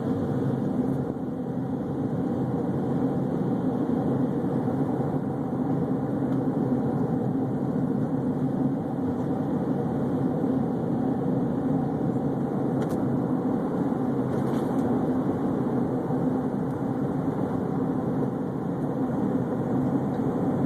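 Car driving along steadily: an even hum of engine and road noise, without changes in speed.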